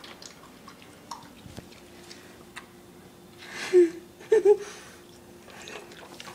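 Puppy eating kibble soaked in water from a plastic bowl: scattered small crunching and wet chewing clicks. About halfway through comes a loud breathy huff, then two short high squeaky sounds.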